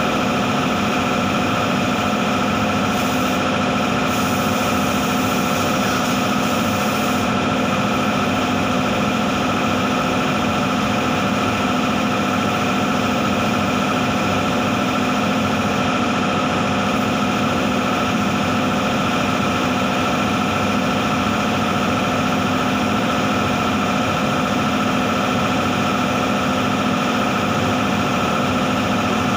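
Steady machine drone with several steady hum tones from a paint spray booth's extraction fan. About three seconds in, a higher hiss joins for roughly four seconds as the compressed-air spray gun is triggered.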